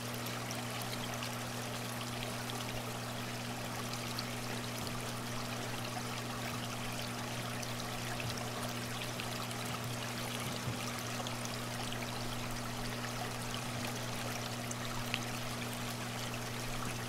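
Hang-on-back aquarium filter spilling water into the tank: a steady trickle, with a low steady hum underneath.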